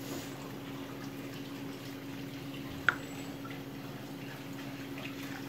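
A steady low hum and faint handling noises, with one sharp click about three seconds in as a small clay moxa cup knocks while it is worked into a cloth bag.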